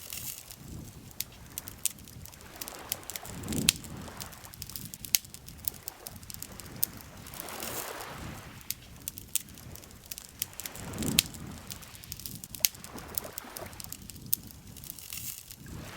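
Wood campfire crackling, with frequent sharp pops and snaps at uneven intervals. Beneath it, soft swells of lake water lapping rise and fade every few seconds.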